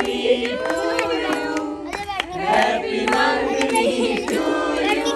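A group of guests singing and calling out together, with scattered hand claps, around a cake cutting.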